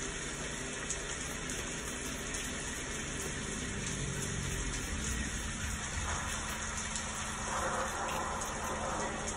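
Recorded thunderstorm sounds: steady rain hiss with a low rumble beneath it.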